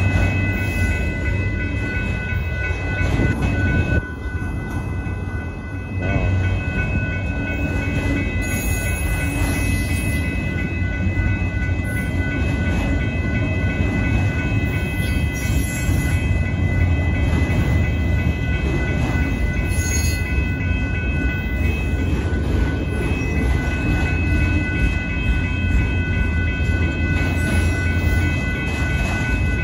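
Union Pacific autorack freight train rolling past at a grade crossing: a steady rumble of wheels on rail with some clickety-clack. Over it runs a steady high-pitched ringing in several tones.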